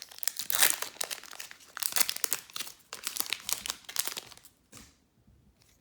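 Foil Pokémon booster pack wrapper crinkling and tearing as it is opened by hand. The crackling stops about four and a half seconds in.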